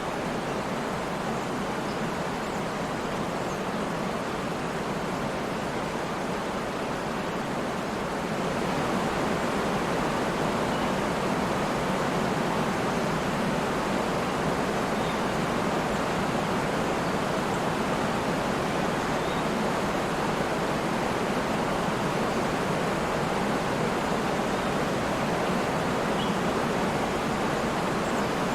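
Waterfall: water falling and rushing in a steady, even roar, a little louder from about eight seconds in.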